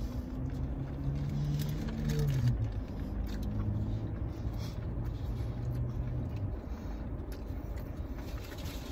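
A person chewing a bite of burger and humming two drawn-out 'mmm' sounds over the first six and a half seconds. Under it runs the steady low rumble of a car idling, heard inside the cabin.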